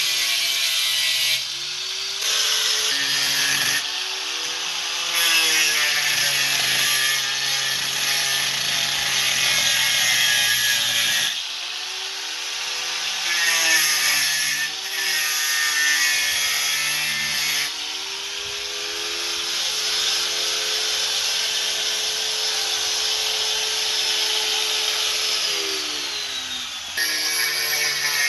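Corded handheld power tool cutting into the rusted steel base of a wooden 4x4 porch post: a steady cutting hiss over the motor, whose pitch sags and recovers several times as the tool bites into the metal and eases off.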